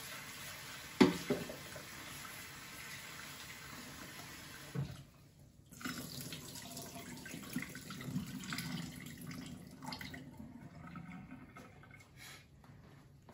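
Water running from the kitchen tap into the sink, with a sharp knock about a second in; the flow cuts off suddenly just before five seconds in. Softer clatter and rustling follow.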